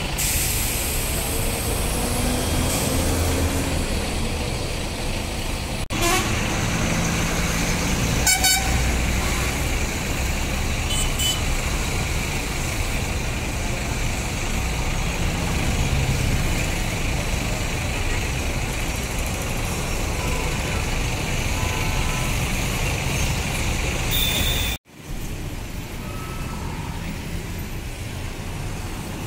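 Busy road traffic with buses and other vehicles passing, engines running and tyres hissing, with a few short horn toots. The sound breaks off abruptly near the end and resumes quieter.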